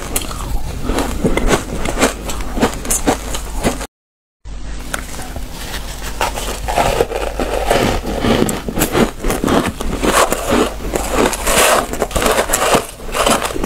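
Frozen purple shaved ice crunching as gloved hands scoop and squeeze it and a person chews it: a dense, irregular run of crisp crunches, with a brief dead-silent break about four seconds in.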